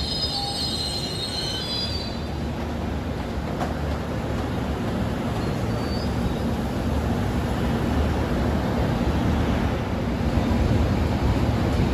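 Train wheels squealing on the rails, fading out about two seconds in, then the steady rumble of the train running, growing slightly louder near the end.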